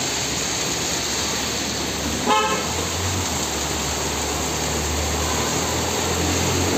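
Heavy rain and a car driving through a flooded street: a steady hiss of rain and churning water. A short car-horn toot comes about two seconds in, and then the car's engine runs low underneath.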